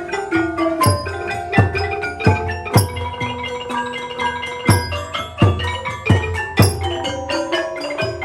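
Cambodian pinpeat ensemble playing: a quick melody of struck notes on roneat xylophone and kong gong circle over regular deep drum beats.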